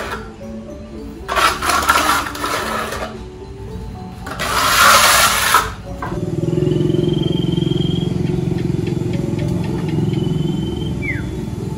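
Steel plastering trowel scraping wet cement render across a wall in two long strokes, followed about halfway in by a steady low drone with a few short high whistles.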